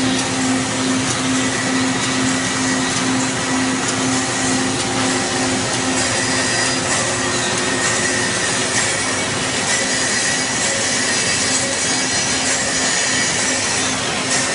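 Wood pencil shaping planer running steadily, its cutters planing wooden pencil stock: a continuous dense cutting noise over a steady low hum and a fainter high whine.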